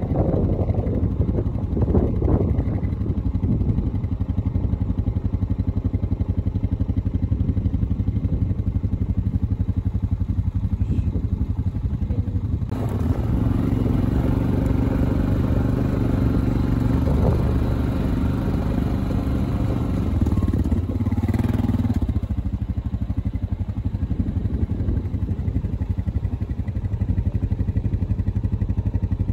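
Quad (ATV) engine running steadily under way, with the engine note fuller and stronger for about ten seconds in the middle.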